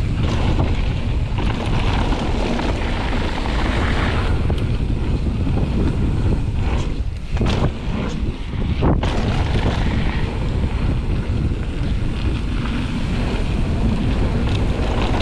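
Wind buffeting the microphone of a mountain bike rider's camera during a fast descent, mixed with the tyres rolling over a dirt and gravel trail; the level drops briefly twice near the middle.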